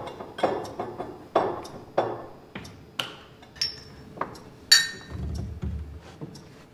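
A run of sharp knocks and taps, then small drinking glasses clinking together in a toast with a bright ringing, the loudest strike about four and a half seconds in.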